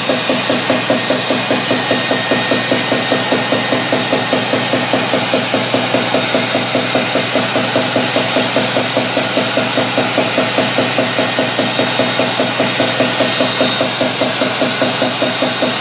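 Wave table running: its drive motor and shaking deck make a steady, even rhythmic pulse several times a second, over a constant wash of water running across the deck.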